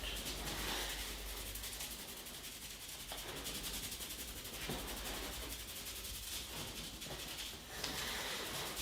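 Hands rubbing steadily over skin and hair during a barber's head and face massage, a continuous hissing friction with a quick, even stroke texture.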